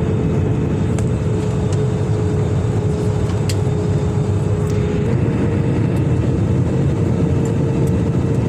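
Airliner cabin noise in flight, likely during the descent: a steady low rumble of engines and rushing air, with a steady hum that sags slightly in pitch and then steps back up about five seconds in.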